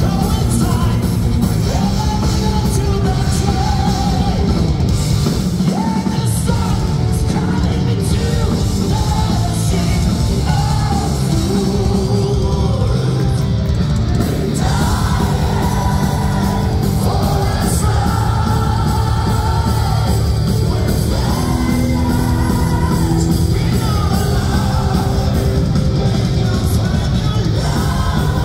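Live power metal band playing: electric guitars, bass and drums under sung lead vocals, loud and steady, with the echo of a large concert hall.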